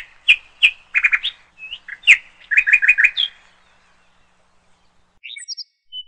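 Bird chirping: a string of short, sharp chirps, with a quick run of four or five about two and a half seconds in. The chirping stops about halfway through, and a few faint high notes follow near the end.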